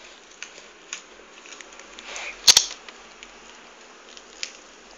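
Steady background hiss with scattered faint clicks and one sharp double click about two and a half seconds in.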